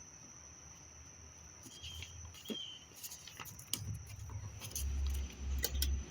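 Handling noise: scattered light clicks and rattles, with muffled low thumps in the last second or so, over a faint steady high whine.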